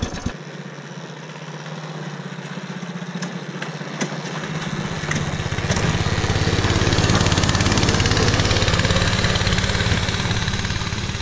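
Small engine of a motorized snow tow running. About four to five seconds in it gets louder and settles into a steady, louder run, as when the throttle opens and the tow pulls away.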